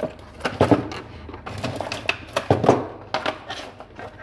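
Hands unpacking a parcel: an irregular run of short taps, clicks and knocks with rustling in between, as the packaging and the lures inside are handled.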